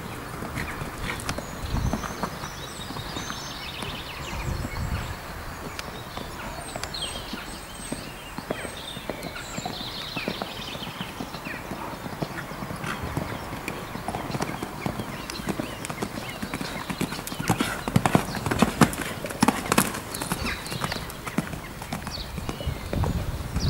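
Hoofbeats of a cantering horse on a sand arena, a steady run of soft thuds, louder about three-quarters of the way through.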